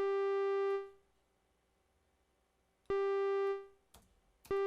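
Synthesized mosquito buzz: a steady, distorted, buzzy tone with many overtones, played as a looped sample in Logic Pro X's Quick Sampler. It sounds three times: twice briefly, then held from near the end, with a couple of sharp clicks just before it comes back in.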